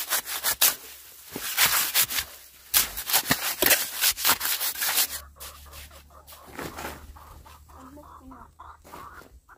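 Fast, rough scraping strokes for about five seconds, then quieter, with a chicken clucking a few times near the end.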